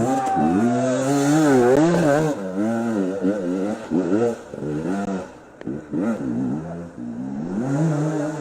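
Two-stroke enduro motorcycle engine revving hard, its pitch rising and falling in quick repeated throttle bursts, with a short lull about five and a half seconds in.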